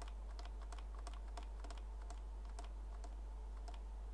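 Typing on a computer keyboard: quick, irregular key clicks, several a second, over a steady low hum.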